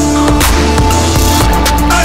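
Background music with a deep bass line, held notes and a steady drum beat.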